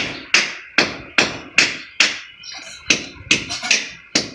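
Hammer striking brick in a steady run of sharp blows, about two and a half a second, with a brief pause about halfway.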